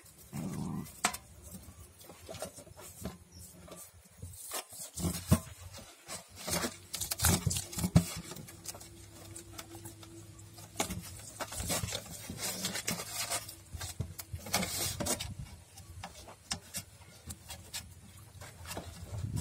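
Hands rubbing coarse salt over a whole scored fish on an aluminium plate. There are irregular wet rubbing and slapping sounds with sharp clicks as the fish is pressed and turned against the metal.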